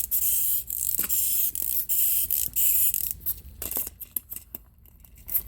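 Small clockwork wind-up toy cars being wound: an irregular run of ratchet clicks over a light whirring hiss, which thins out and goes quiet near the end as the winding is finished.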